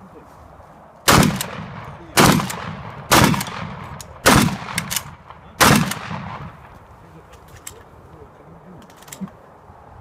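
Shotgun firing five shots about a second apart, each a sharp report with a short echoing tail, followed later by a few faint clicks.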